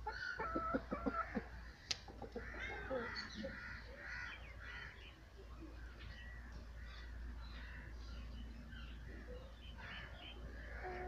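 Chickens clucking and birds making short chirping calls, with a run of quick taps near the start and a sharp click about two seconds in.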